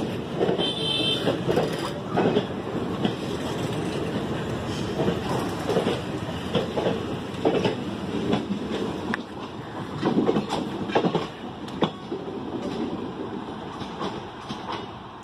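Indian Railways passenger coaches rolling past, with wheels clattering over the rail joints in irregular knocks over a steady rumble. There is a brief high tone about a second in, and the sound fades near the end.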